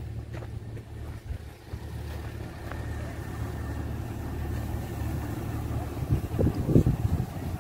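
A low, steady engine rumble, with a cluster of louder thumps about six seconds in.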